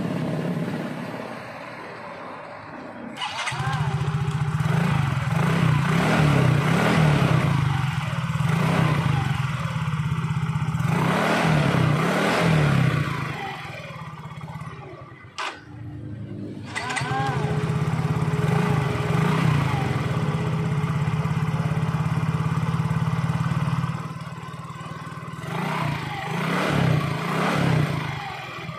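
Yamaha Mio scooter's single-cylinder four-stroke engine running, with the throttle blipped in several short revs near the end. The engine drops out briefly about halfway and then runs again.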